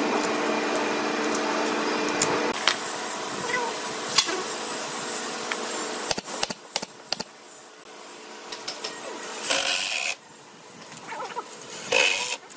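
Workshop sounds: a steady machine hum for the first couple of seconds, then a few sharp shots from a pneumatic brad nailer about six to seven seconds in. Near the end come two short bursts from a cordless drill driving screws into the wood.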